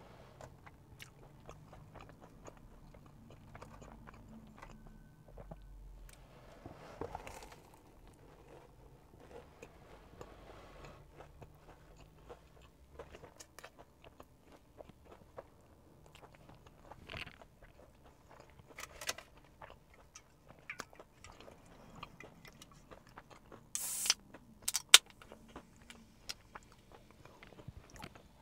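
Close, quiet chewing and crunching as a Korean corn dog with fried batter, dipped in spicy tteokbokki sauce, is bitten and eaten. Near the end a soda can of Canada Dry ginger ale is opened, with a short hiss and, about a second later, a sharp snap that is the loudest sound here.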